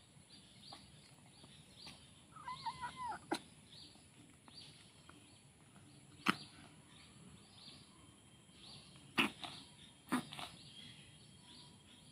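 A kitten mewing faintly in a quick run of short calls about two and a half seconds in, with a few sharp clicks scattered through. The kitten is having hiccup-like fits that the owner fears come from poisoning.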